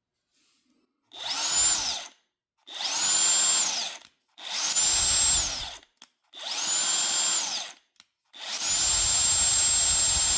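Cordless impact wrench triggered in five bursts, the last and longest near the end. Each time the motor whine climbs, holds and winds down, with the hammering mechanism rattling underneath, as the wrench tries to break a fastener loose.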